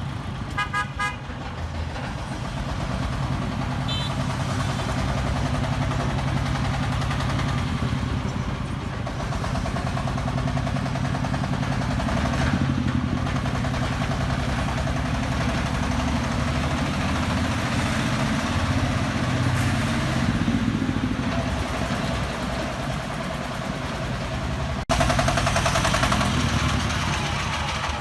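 A vehicle engine running steadily, with a few short horn toots about a second in and one more brief toot a few seconds later. Near the end the sound cuts suddenly to a louder engine.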